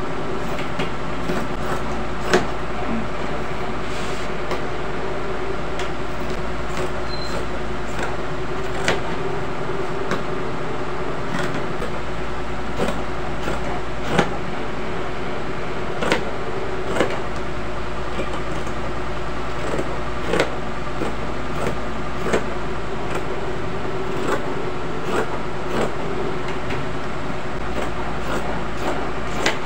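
Steady machine hum, with scissors cutting knit fabric on a table over it: sharp, irregular clicks every second or few.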